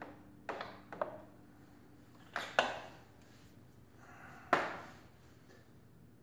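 Sharp metal knocks and taps as a YSS stage 2 rear shock is worked into its mounts on a Honda Grom, bumping against the frame: about six separate clanks. The loudest, about four and a half seconds in, rings briefly.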